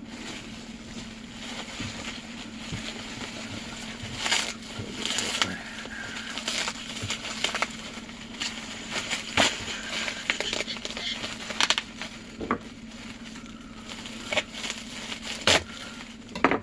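Bubble wrap being pulled off and unwrapped by hand: plastic crinkling and crackling throughout, with many irregular sharp snaps and clicks from about four seconds in.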